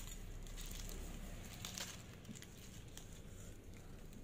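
Aluminium foil wrapped around a kebab crinkling faintly as it is handled and lifted, a few scattered crackles with one louder one about two seconds in.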